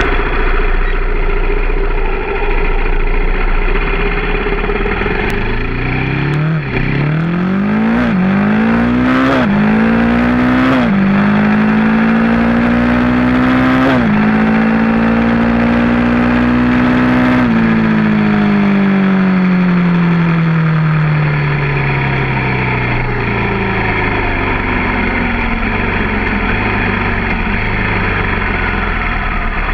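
Off-road vehicle's engine accelerating hard up through the gears, its pitch climbing and dropping back at four shifts, then holding at a steady cruise before easing off and slowing down. A steady rush of wind and road noise runs underneath.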